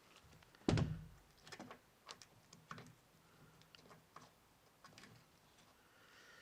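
Brake caliper parts and small items handled on a workbench: one heavy knock less than a second in, then a string of lighter clicks and taps.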